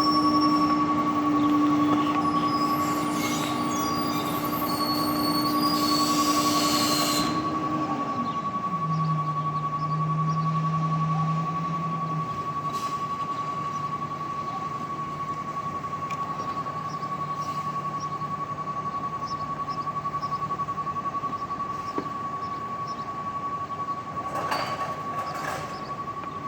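Recycling truck giving off a steady high-pitched beeping tone, strange and annoying, over a lower mechanical hum. About six seconds in there is a short hiss, and then the hum drops in pitch.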